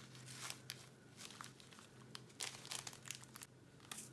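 Faint crinkling of a plastic zip bag as small round resin diamond-painting drills are tipped out of it, with scattered light ticks of the drills dropping into a plastic tray.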